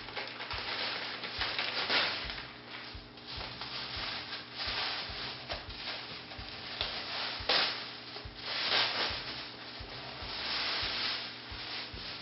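Packaging rustling and crinkling in irregular swells as a parcel is opened by hand, with a sharp crackle about halfway through.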